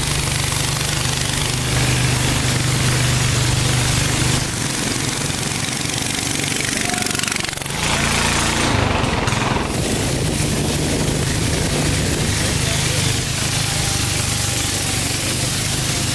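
A river motorboat's engine running steadily, with water rushing past the hull; the engine drone dips briefly about halfway through.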